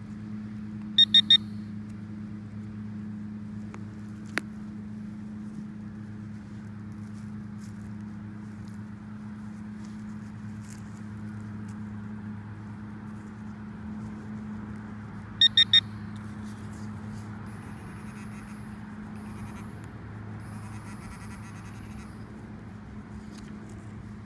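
Metal-detecting electronics giving two sets of three quick, high beeps about fourteen seconds apart, over a steady low hum.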